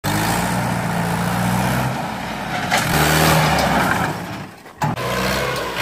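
Mahindra 575 DI tractor's four-cylinder diesel engine running hard while pulling a fully loaded sugarcane trolley, heavy enough to lift the tractor's front wheels. The engine sound changes abruptly a few times and dips briefly near the end.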